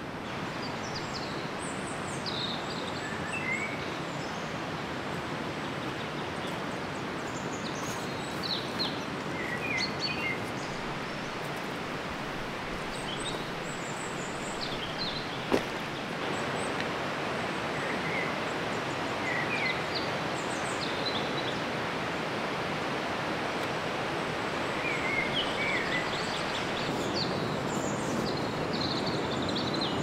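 A river rushing steadily, with birds giving short high chirps now and then, and a single sharp click about fifteen seconds in.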